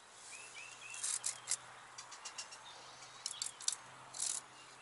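Short light metallic clicks and clinks from a hand tube bender being fitted and worked on a steel brake hard line, in a few small clusters. A bird chirps a few quick notes in the background near the start.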